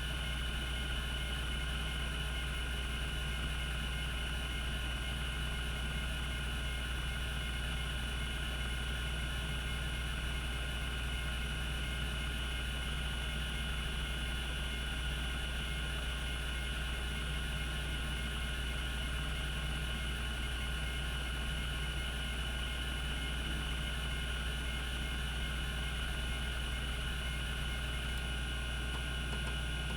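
Cogito Systems CG-912 5.25-inch hard disk drive spinning steadily at speed: a constant spindle hum with a steady whine above it, and no seek clicks.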